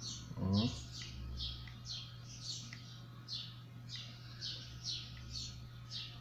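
A small bird chirping over and over, short falling chirps about twice a second, over a low steady hum, with a brief vocal hum from a man about half a second in.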